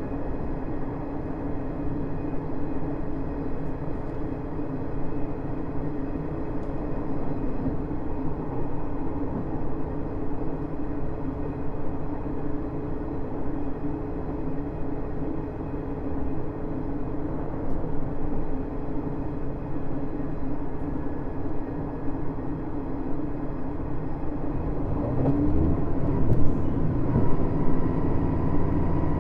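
KiHa 110 diesel-hydraulic railcar under way: a steady diesel engine hum over running noise. About 25 seconds in, the engine note glides and settles to a new, steadier hum.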